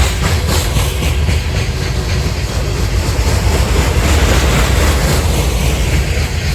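Loaded coal train's hopper cars rolling past, a steady low rumble of steel wheels on rail with clickety-clack over the rail joints.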